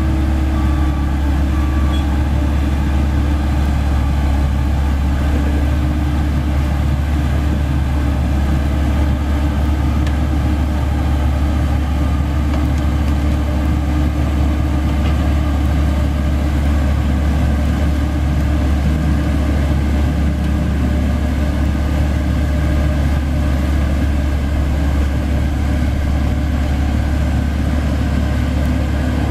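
Hamm 3410 padfoot roller's diesel engine running steadily at an even pitch as the roller creeps down the truck's tilted loading bed.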